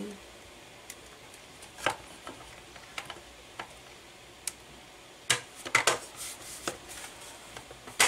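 Scattered clicks and knocks of a DVR's board and case being handled and fitted together, with a denser run of louder clicks and rattles about five to six seconds in.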